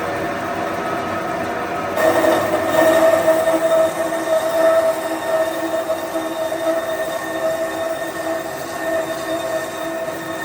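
A workshop power tool running steadily with a whining hum. It gets louder about two seconds in, when a higher tone joins.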